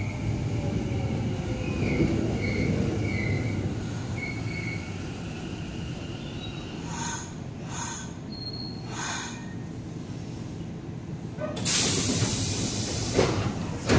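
Kyoto Subway 10 Series electric train drawing to a stop, with a low rumble and thin brake squeals. About halfway through come three short hisses of air, then near the end a louder, longer hiss as its doors open, ending in a clunk.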